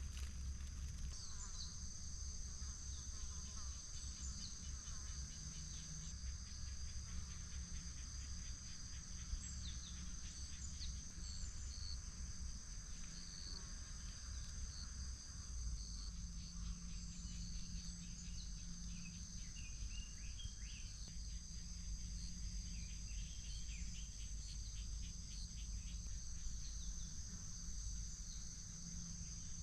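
Insects trilling steadily in a continuous high drone, with scattered short chirps in the middle stretch and a low steady rumble underneath.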